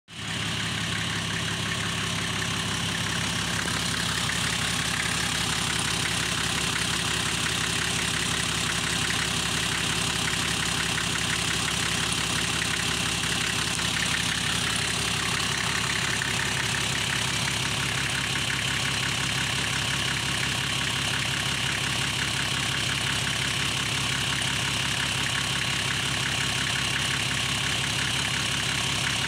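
Toyota 1HZ 4.2-litre straight-six diesel idling steadily in a LandCruiser 75 Series, heard at the open engine bay.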